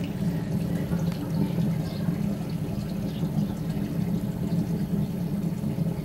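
Wood fire in a homemade rocket stove heater drawing hard up its chimney, a steady low rumble that does not change.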